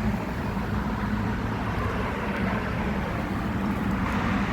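Outdoor air-conditioning condenser unit running: a steady low hum with a droning tone and an even fan rush.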